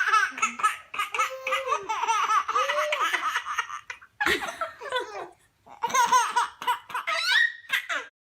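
A baby laughing hard: high-pitched belly laughs and giggles in repeated bursts, with short breaks about halfway through.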